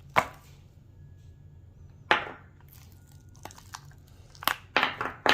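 Cured epoxy resin door knobs being demolded and handled: a few separate sharp knocks and clicks of hard resin against the mold or table, the loudest about two seconds in, and a quick cluster of them near the end.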